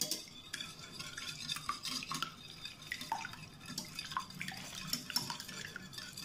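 A utensil beating eggs in a bowl, with light, irregular clinks against the bowl.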